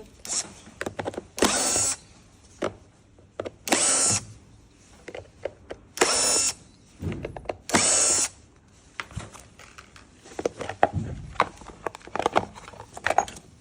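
Power drill running in four short bursts of about half a second each, with small clicks and knocks in between and after.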